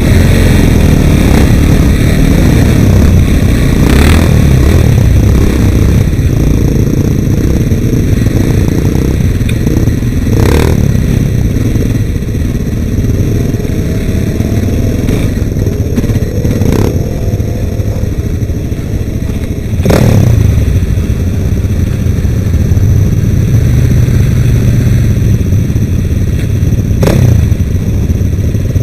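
Sport ATV engine running and revving close to the microphone as the quad rides over rough dirt, its pitch rising and falling with the throttle. A handful of sharp knocks cut through it at irregular moments.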